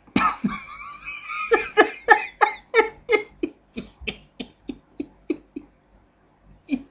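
A person laughing hard close to the microphone: a high, wavering burst of laughter, then a long run of 'ha' pulses, about three a second, that gradually trail off.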